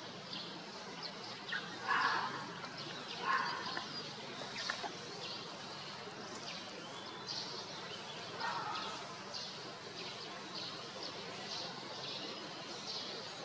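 Outdoor rural ambience: small birds chirping in short, repeated high notes over a steady hiss, with a few louder brief calls about two, three and eight and a half seconds in.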